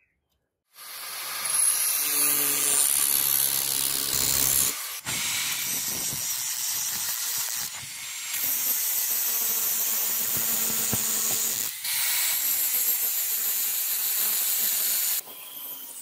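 Angle grinder grinding the edge of a spring-steel knife blade, starting about a second in with a harsh hiss over a steady motor whine. It runs as several passes broken by short cuts, and is quieter near the end.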